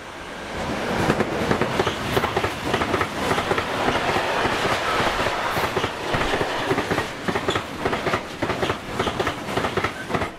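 Freight train of tank wagons hauled by a class 145 electric locomotive passing close by. The noise swells over the first second as the locomotive arrives. Then the wagon wheels clatter steadily over the rail joints, dropping away sharply at the very end.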